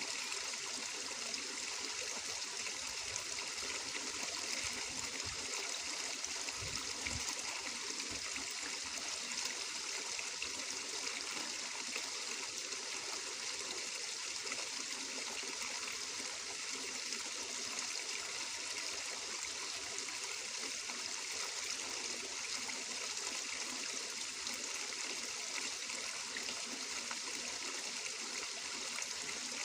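A small stream of water running and trickling steadily, with no pauses or changes.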